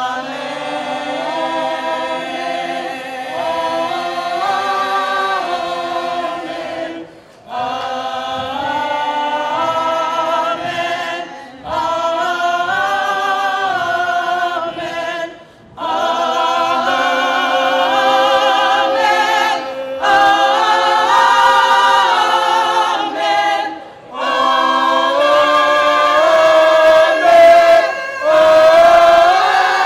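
A small a cappella vocal ensemble of women and one man singing in harmony, in phrases with short breaks between them.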